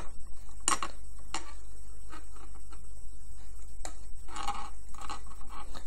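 Small sharp clicks, about three of them, with soft handling rustle: a metal hook and rubber loom bands being worked on a plastic loom's pins. A steady low hum runs beneath.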